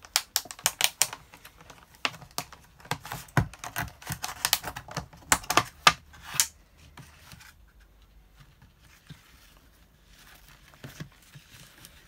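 Clear plastic tub being opened by hand: a quick run of sharp plastic clicks and crackles as the taped lid is peeled and prised off, then much quieter handling for the last few seconds.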